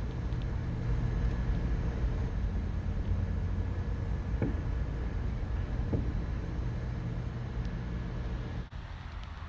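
A steady low rumble with a faint hum running through it. There are two faint knocks in the middle, and the sound cuts off abruptly near the end.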